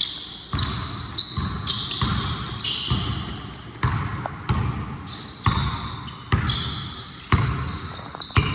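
A basketball being dribbled on a court: a sharp bounce roughly every second, with high-pitched sneaker squeaks on the floor in between.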